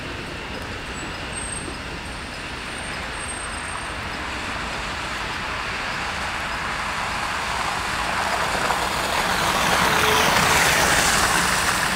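Road traffic noise that builds as a city bus drives up close on the snowy road, loudest about ten seconds in, with its tyres on the snow and a low engine hum near the end.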